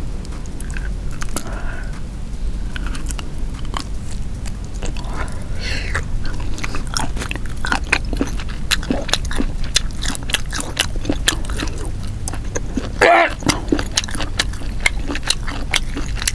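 Close-miked chewing of grilled squid: wet clicking and smacking mouth sounds, sparse at first and coming thick and fast from about six seconds in, with a brief louder mouth sound about thirteen seconds in.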